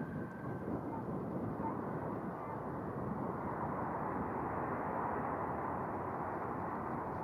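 Jet engine noise from a Boeing 717's Rolls-Royce BR715 turbofans as the aircraft lands: a steady rushing sound that swells a little midway.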